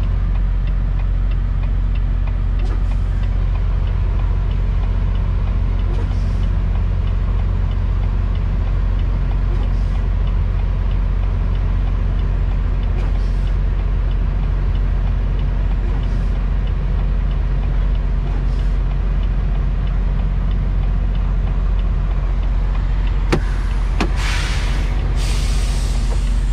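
Volvo semi-truck's diesel engine running with a steady low drone, heard inside the cab. Near the end come a few sharp bursts of hissing air from the truck's air brakes.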